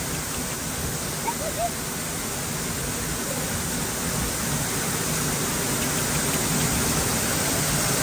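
Waterfall close by, a steady rush of water pouring down onto rocks that grows slightly louder toward the end.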